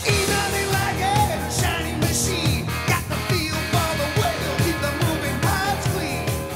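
Rock song playing, with a sung vocal over a steady drum beat.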